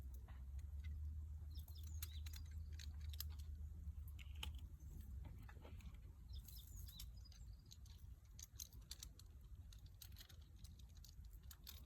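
Faint outdoor ambience: a steady low rumble with many scattered short clicks and brief chirps, the rumble easing about halfway through.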